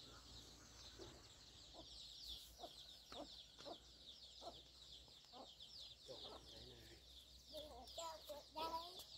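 Faint chickens clucking: short single clucks every half second to a second, and a longer, wavering call near the end. A continuous high, fast chirping runs underneath.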